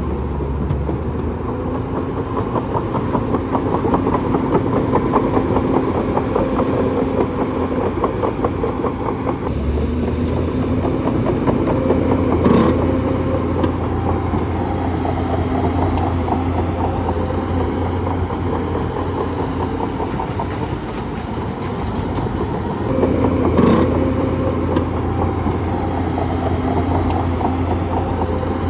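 Bulldozer's diesel engine running steadily with a rapid rattling clatter, swelling briefly louder twice, about twelve seconds in and again near twenty-four seconds.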